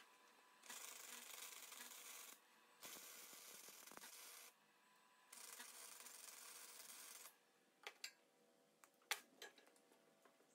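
Wire-feed welder laying three short welds on angle iron, each a steady crackling hiss lasting one to two seconds with brief pauses between. A few sharp clicks and knocks follow near the end.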